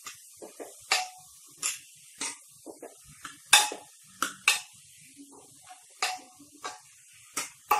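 Steel ladle clinking and scraping against the inside of a pressure cooker as frying chopped onions are stirred: a string of irregular sharp clinks over the faint sizzle of the onions in hot oil.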